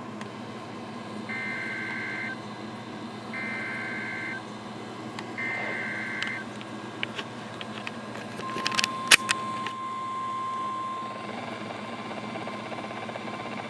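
EAS SAME digital header: three bursts of buzzing two-tone data, each about a second long and evenly spaced, marking the start of a new weather alert. A few seconds later comes a steady single-pitch weather radio alert tone lasting about two and a half seconds, with a couple of loud clicks near its start, over a low radio hum and hiss.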